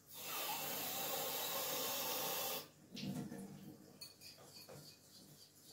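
Water running steadily from a tap, shut off about two and a half seconds in, then faint handling sounds.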